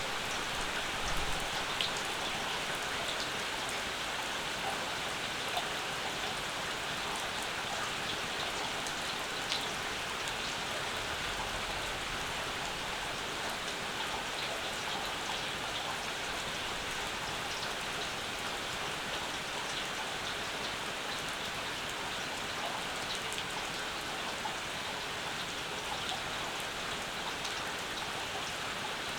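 Steady summer rain, with scattered close drops ticking on surfaces.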